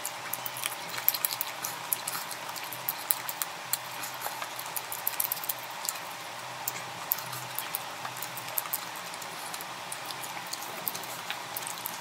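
Close-miked wet eating sounds of a person chewing chicken with the mouth open: many small, sharp smacking clicks over a steady hiss.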